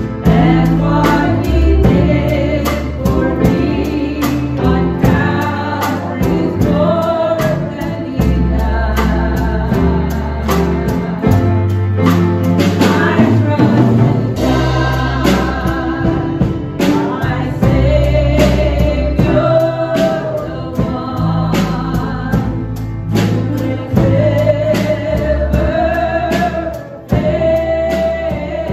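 Small church worship band playing a gospel hymn: several women's voices singing together over organ, electric guitar and a drum kit keeping a steady beat.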